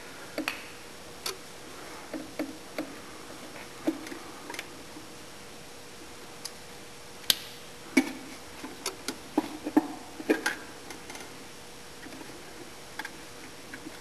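Irregular small clicks and taps of hands handling the up-down drum switch and its fittings inside a steel sawmill control box, busiest in a run of clicks about halfway through.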